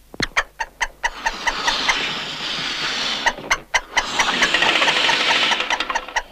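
Cartoon sound effect of a hand pump being worked: a rapid run of short squeaky strokes, about four or five a second, over a steady hiss of air.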